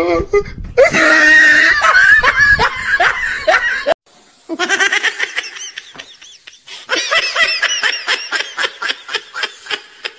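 Laughter: a loud fit of laughing, a sudden break about four seconds in, then more laughing in quick repeated bursts.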